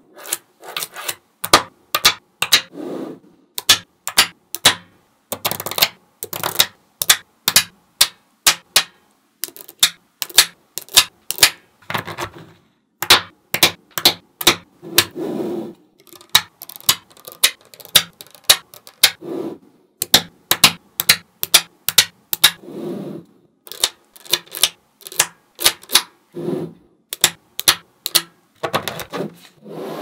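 Small neodymium magnetic balls snapping together with sharp, irregular clicks, often in quick clusters, as blocks and rows of balls are set into place. A few duller, longer rustles come in between.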